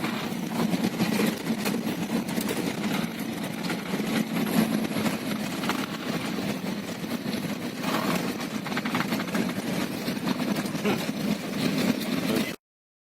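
An engine running steadily, with short knocks and clatter over it; it cuts off suddenly near the end.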